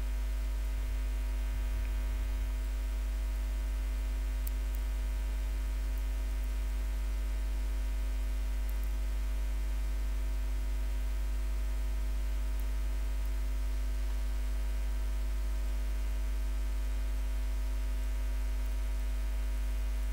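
Steady electrical mains hum with a stack of overtones, unchanging throughout, with a few faint ticks.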